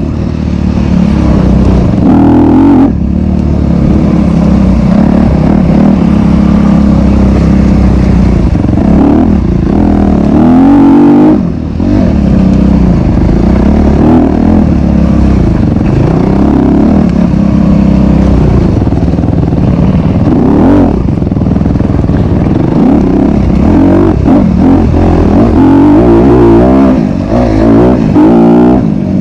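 2021 Honda CRF250RX's single-cylinder four-stroke engine racing in the mud, revving up and down with the throttle as it climbs and falls in pitch. The throttle is chopped briefly a few times, near 3 seconds, near 12 seconds and near the end.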